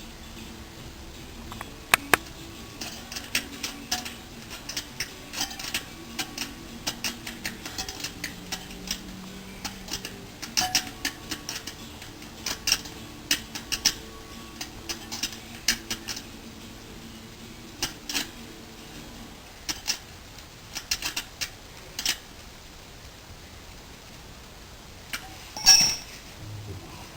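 Metal tools and parts clinking and tapping irregularly, dozens of sharp light clicks, as a moped wheel with a new tyre and tube is fitted, with one louder clank near the end.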